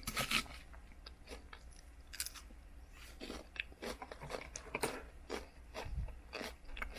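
Someone eating crunchy food close to the microphone: irregular bites, crunches and clicks, loudest just after the start.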